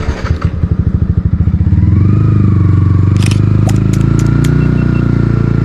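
Yamaha motorcycle engine pulling away: an uneven low putting for the first couple of seconds, then a louder, steady engine note as the bike gets under way. A few sharp clicks come in the middle.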